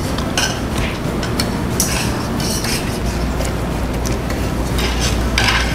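Metal utensils clinking and scraping against stainless-steel hotpot pots and plates. A low steady hum comes in about three seconds in.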